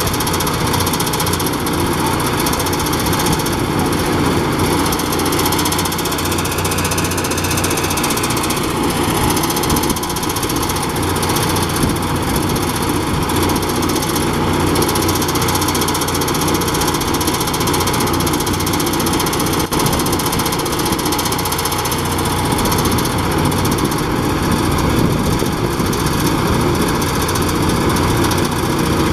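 Power rice thresher running steadily, its single-cylinder Kubota RD 65 diesel engine turning the threshing drum while rice stalks are fed in and threshed.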